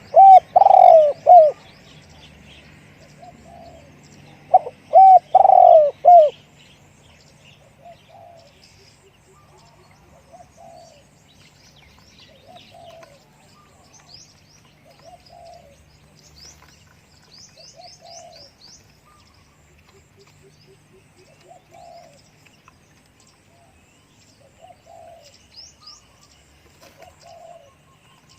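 Spotted dove cooing close by: two loud phrases of several notes in the first six seconds, then fainter coos repeating every one to two seconds. Small birds chirp faintly now and then over a steady low hum.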